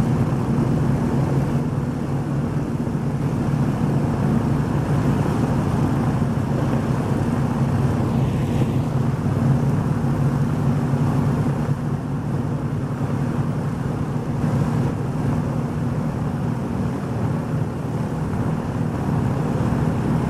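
Avro Lancaster's four Merlin V12 piston engines running steadily at low power on the ground, propellers turning, a deep even engine hum with no change in pitch.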